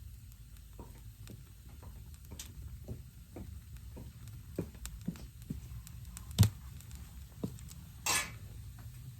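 Wood burning in a fire pit, crackling with irregular small pops and one louder snap about six and a half seconds in, over a low steady rumble.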